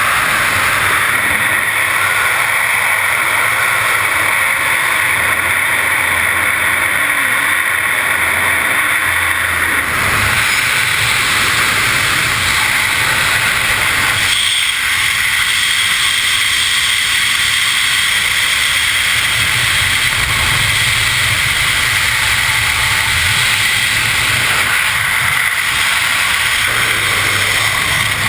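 Freefall wind rushing hard over a helmet-mounted action camera's microphone, a loud steady roar of air during an angle-flying skydive. The rush shifts in tone about ten seconds in and again near fourteen seconds, as the body position changes.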